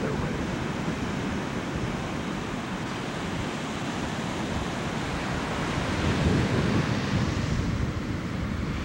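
Ocean surf breaking and washing up the beach, with wind buffeting the microphone; the rush swells about six seconds in.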